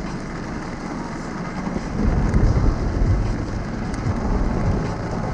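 Car driving through heavy rain on a flooded road, heard from inside: a steady hiss of rain and wet tyres over a low engine and road rumble, which grows louder about two seconds in.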